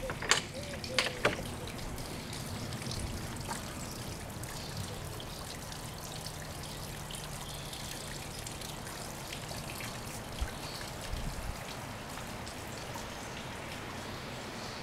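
Water trickling steadily, with a few faint ticks.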